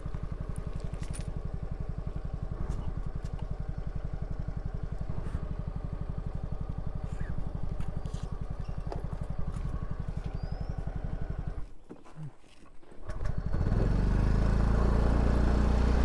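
Small scooter engine idling with an even, rapid putter. About twelve seconds in it drops away for a moment, then a louder, steady low rumble with a rushing hiss takes over.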